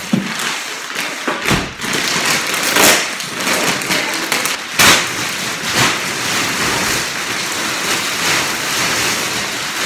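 Thick plastic wrapping crinkling and crackling as it is torn open and pulled off a roll-packed mattress by hand, with several louder sharp crackles along the way.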